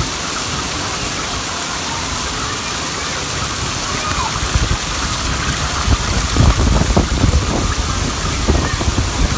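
A stream of water pouring and splashing into a water-park tipping bucket as it fills, a steady splashing hiss. From about halfway in, uneven low thumps and rumbles join it.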